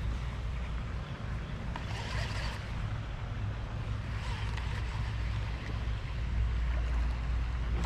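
Steady low wind rumble buffeting an action-camera microphone, with a faint outdoor hiss, ending in a sudden loud knock.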